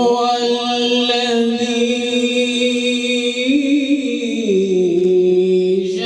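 A man reciting the Quran in melodic tajwid style, drawing out one long sustained note. The pitch lifts briefly about three and a half seconds in, then settles on a lower note.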